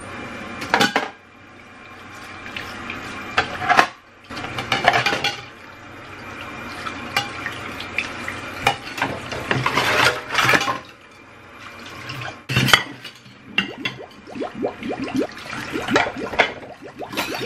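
Tap water running and splashing into a stainless steel sink while ceramic plates and bowls clatter against each other and steel cutlery clinks as dishes are rinsed, with a quick run of clinks near the end.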